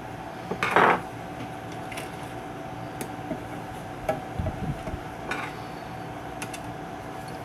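A screwdriver and hands working metal parts on an old tube-radio chassis: a loud scrape about a second in, then scattered small clicks and knocks as a stubborn part is pried into place. A steady hum runs underneath.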